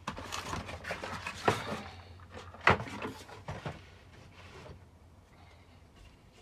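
Loose wooden cabinet panels knocking and scraping against each other as they are handled and shuffled into place, with two sharper knocks about one and a half and two and a half seconds in, then quieter handling.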